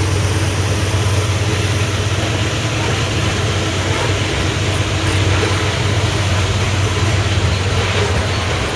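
Freight train of covered hoppers and tank cars rolling past at speed: steady noise of steel wheels on the rails, with a low steady drone underneath.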